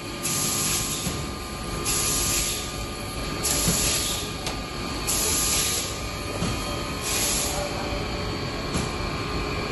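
Steady workshop machinery drone with a faint steady whine, and a short hiss that comes back about every one and a half to two seconds.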